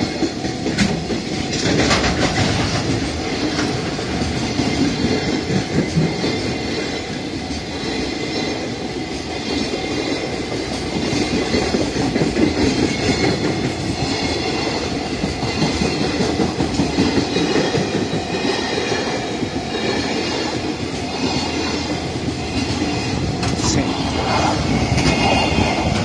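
Container freight train's wagons rolling past close by: a continuous rumble of steel wheels on the rails, with the clickety-clack of wheels crossing rail joints.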